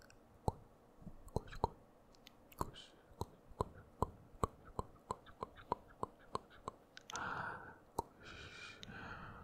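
Close-miked ASMR mouth sounds: a steady run of tongue-and-lip clicks, about two to three a second, then from about seven seconds in a stretch of unintelligible whispering.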